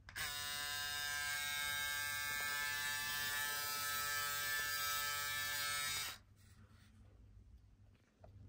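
Braun Series 7 cordless electric shaver switched on, running with a steady buzz for about six seconds, then switched off.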